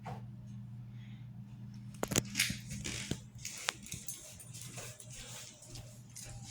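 A steady low hum, with a burst of sharp clicks, knocks and scraping starting about two seconds in, like hard objects being handled and knocked about during cabinet work.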